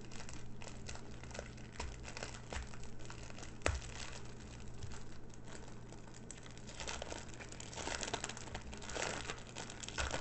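Small plastic bags of diamond-painting drills crinkling as they are handled, with scattered light clicks and one sharper click about three and a half seconds in. The crinkling gets busier near the end.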